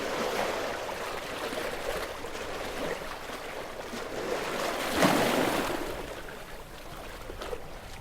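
Gentle waves washing onto a beach, one wave breaking and washing up about five seconds in, then easing back.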